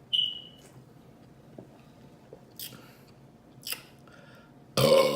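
Close-miked mouth noises of eating pizza: scattered chewing and smacking sounds, with a sharp click right at the start. A loud, short burp comes near the end.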